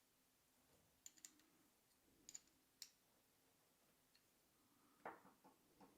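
Faint, sparse small clicks from a small metal bicycle part and tools being handled during reassembly, with a short cluster of louder taps near the end.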